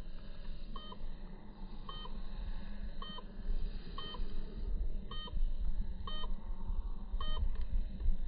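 Short electronic beeps repeating about once a second, each a brief blip, over a low wind rumble on the microphone.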